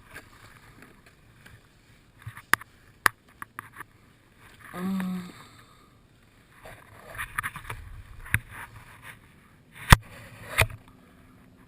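Handling noise on a fishing kayak as two rockfish are unhooked: scattered sharp clicks and knocks of gear and hull, with a short hummed "mm" from the angler about five seconds in.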